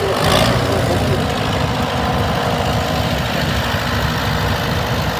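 Vintage tractor engines running as several tractors drive slowly past at close range, a steady low engine note with rapid firing pulses.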